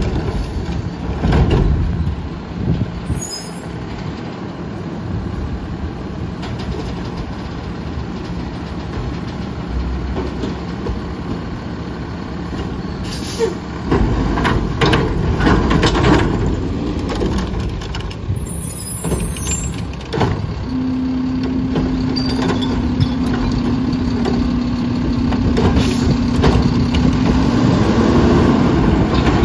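Front-load garbage truck with a Curotto-Can cart arm: diesel engine running and revving, with sharp knocks near the start as a cart is set down and short air-brake hisses twice. A steady hum holds for several seconds in the second half.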